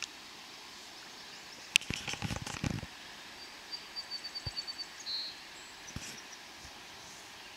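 Steady outdoor hiss with a small bird giving a rapid high trill about halfway through and a short chirp just after. A sharp click and about a second of rustling come a couple of seconds in.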